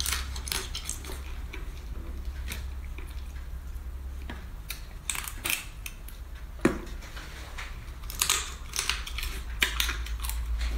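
Cooked spiny king crab shell being cracked and picked apart by hand: scattered small crackles and clicks, with one sharper snap about two-thirds of the way through and a quick cluster of cracks near the end.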